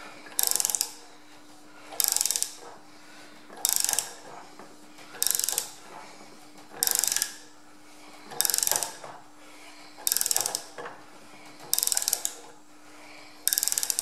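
A socket ratchet clicking in short runs, nine of them, about one every second and a half, as the handle is swung back between pulls. It is winding a threaded-bar puller that draws a tight tractor front axle pivot pin out of its bore. A steady low hum runs underneath.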